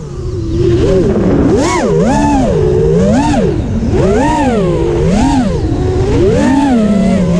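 Racing quadcopter's Emax 2306 2400KV brushless motors and propellers whining, the pitch rising and falling about once a second as the throttle is worked. The sound dips briefly right at the start and then stays loud.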